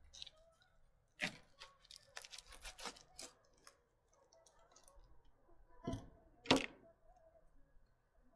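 Scattered light clicks and knocks, a quick run of them between about one and three seconds in, then two louder knocks about six seconds in.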